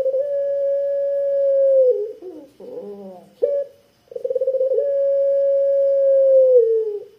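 Puter pelung (domestic ringneck/Barbary dove) cooing: two long, drawn-out 'kwook' coos in a deep, full voice, each opening with a brief stutter, held steady and dropping in pitch at the end, with short lower notes in between.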